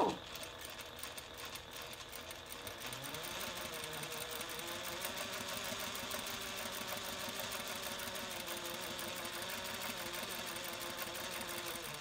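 Juki DDL-8700 industrial single-needle lockstitch sewing machine running steadily at speed, stitching through vinyl strips.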